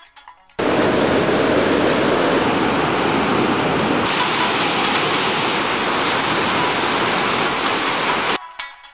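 Rushing white water from mountain rapids and a waterfall: a loud, steady wash of water noise that starts abruptly about half a second in. About four seconds in it changes abruptly to a brighter hiss, then it cuts off near the end.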